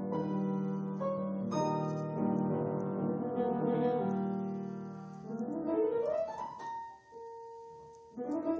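Steinway grand piano with the lid down, improvising in a Spanish style: sustained chords, then rising arpeggios about halfway through, a single held note, and another rising run near the end.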